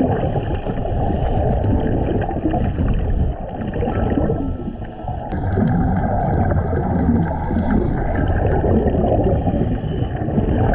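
Underwater sound recorded by a camera submerged with scuba divers: a steady, muffled rush and rumble of water, with the gurgle of divers' exhaled regulator bubbles.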